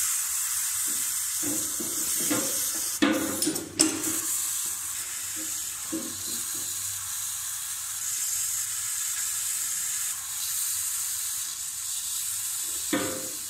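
Steady hiss of pressurised water spraying from a small knife cut in a plastic water pipe; the leak is still open while a hand pressure pump forces leak-sealing solution through the line. A couple of knocks about three to four seconds in.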